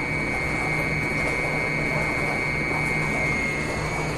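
Stainless steel slurry mixer running steadily with water in the tank: its bottom electric rotor drive turns the mixing blades, giving a steady high whine over a low, evenly pulsing hum and a churning wash.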